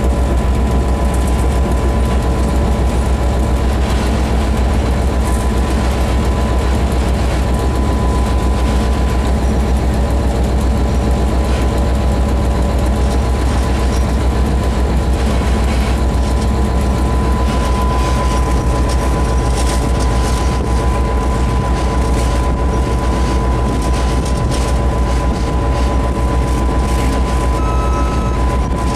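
Diesel locomotive's engine running steadily under way, heard from inside the cab as a loud, even low rumble, with a thin steady whine running through it.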